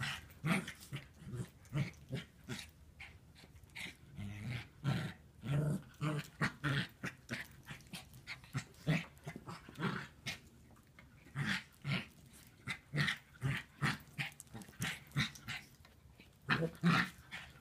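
Two puppies play-fighting, giving many short play growls and yips, one or two a second, with brief pauses in between.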